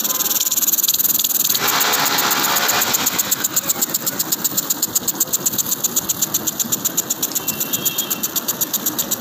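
Sprinkler nozzle of a solar-panel cleaning system spraying water jets across the panels: a hissing rush of spray, then from about three seconds in a fast, even rattle of about seven beats a second.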